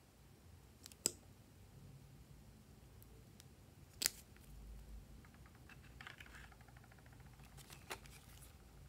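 Small sharp plastic clicks from handling pencil-shaped lip tint pens and their caps, the loudest about four seconds in. Near the end comes light rustling and another click as the plastic-and-card blister pack of pens is picked up.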